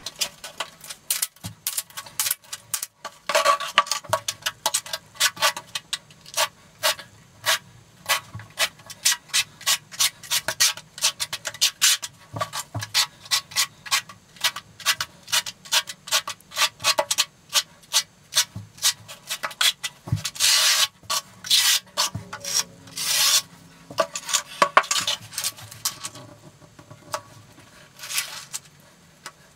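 Steel notched trowel scraping and combing thin-set mortar across the shower floor in quick repeated strokes, with a run of longer, louder strokes about two-thirds of the way through.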